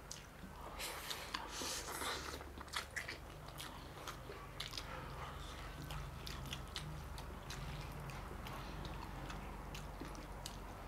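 A person chewing and eating, close to the microphone: quiet mouth sounds with many small wet clicks and smacks scattered throughout.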